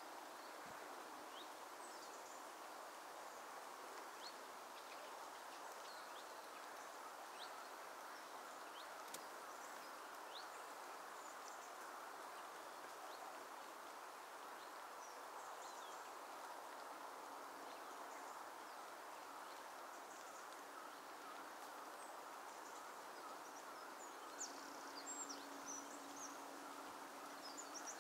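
Faint, steady outdoor background hiss with scattered short, high-pitched bird calls, which come more often near the end.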